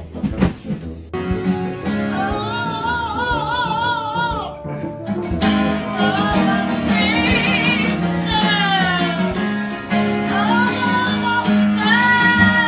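Acoustic guitar strummed while a yellow-headed Amazon parrot sings along in long, high, wavering notes, three sung phrases with one sliding down in pitch. A few brief knocks come at the very start.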